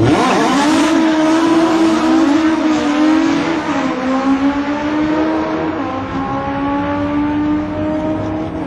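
Two Legend race cars launching together off the drag strip start line, their engines revving hard and rising in pitch at the launch. The engines then run on at high revs as the cars pull away, dipping in pitch about four seconds in and growing slightly quieter as they recede.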